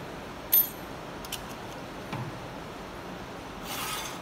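Small parts being handled at a COF bonding machine: one sharp metallic click about half a second in, a few light taps and a soft knock, then a short hiss near the end, over the machine's steady hum.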